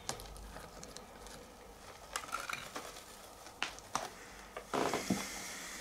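Pliers and wire working in granular bonsai soil in a small terracotta pot: a few scattered clicks and scrapes, then a longer gritty rustle near the end.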